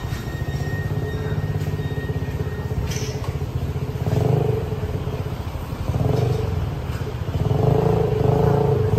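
Motor vehicle engine noise from passing traffic: a steady low rumble with a pitched engine tone that grows louder about four seconds in, again about six seconds in, and from about seven and a half seconds on.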